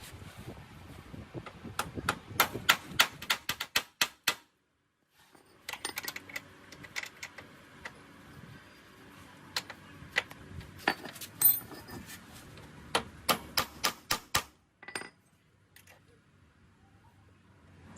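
Runs of sharp metallic clicks and clinks from hand tools on metal motorcycle parts during disassembly. Several strikes come each second, stop dead briefly about four and a half seconds in, then resume, and fade to quiet in the last few seconds.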